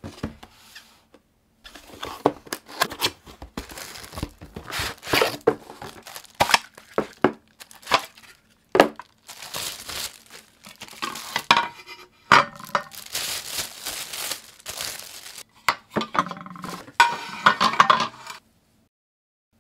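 Plastic wrapping crinkling and tearing as it is pulled off black donut-maker plates, mixed with knocks and clinks of the plates being handled and laid down. The sounds come in irregular bursts with short pauses.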